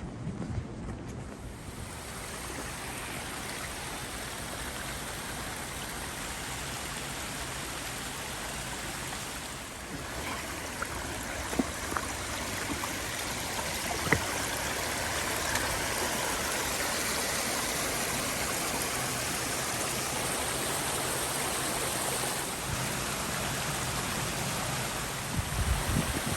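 Steady rushing of flowing water from a stream or falls, with a few faint knocks partway through.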